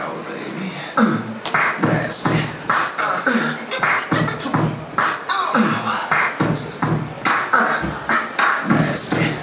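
A hip hop beat in a steady rhythm: deep kicks that drop in pitch, with sharp snare and hi-hat-like hits over them.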